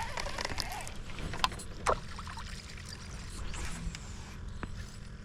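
Water splashing and lapping around a small jon boat, with a couple of sharp knocks about one and a half and two seconds in.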